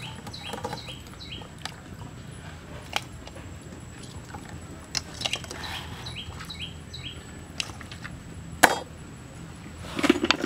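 A bird calls in two runs of quick, falling chirps. Between them come scattered clinks and knocks of metal tongs against an aluminium wok, the loudest a single sharp knock near the end.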